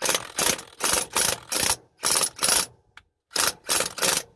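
Ratchet wrench clicking in quick back-and-forth strokes, about three a second with short pauses, as it turns out a broken bolt through another bolt welded onto its stub; the bolt has come free and is turning.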